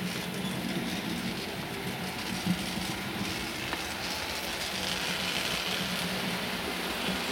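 Model railway trains running along the layout's track: a steady electric motor hum with the light rattle of small metal wheels on the rails as a small tank locomotive passes, the hiss and rattle growing from about five seconds in as a longer train of coaches goes by.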